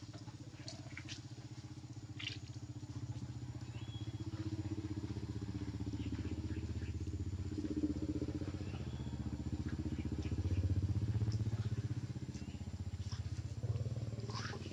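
A small engine, like a motorcycle's, running steadily with a low pulsing rumble that swells somewhat in the middle and eases off again, with a few faint clicks over it.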